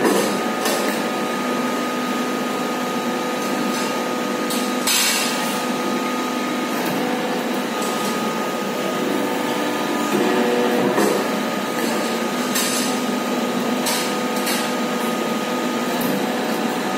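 Hydraulic deep-draw press running: the power pack's electric motor and pump hum steadily, the pitch shifting briefly twice. A few sharp metallic clanks come from pressed sheet-steel parts being handled.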